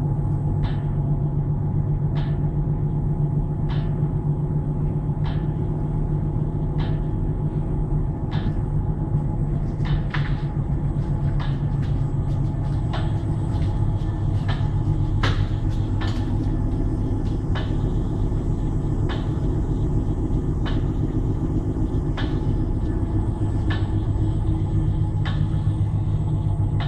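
Steady low machine hum of a running inline magnetron sputtering coating line, with light clicks about every one and a half seconds.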